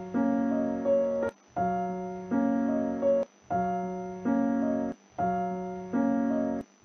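Background music: a short keyboard phrase of a few held chords, looped about every two seconds with a brief break between repeats.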